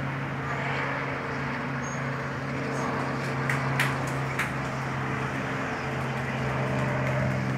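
Robinson R44 helicopter flying low past, a steady drone from its six-cylinder piston engine and rotors. A couple of sharp clicks come about four seconds in.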